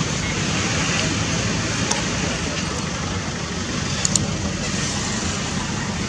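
Steady outdoor background noise: a constant low rumble with a hiss over it, and a few faint short clicks about two and four seconds in.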